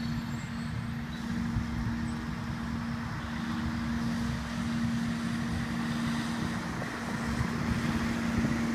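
Wind rumbling on the microphone and a constant low hum, over a steady hiss of light rain and flowing creek water.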